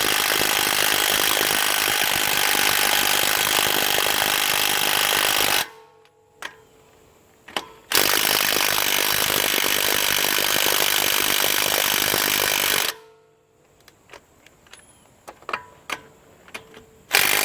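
HANS 1/2-inch cordless impact wrench hammering on a car's lug nuts in two long runs of about six and five seconds, with a third run starting near the end and a few clicks and knocks between them. The lugs do not break loose.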